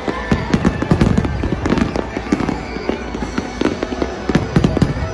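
Fireworks going off in a dense, irregular string of sharp bangs, with music playing underneath.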